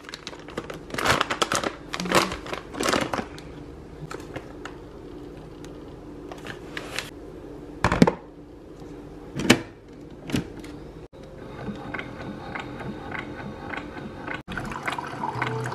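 Water running in a kitchen sink, with scattered clinks and knocks of dishes being handled.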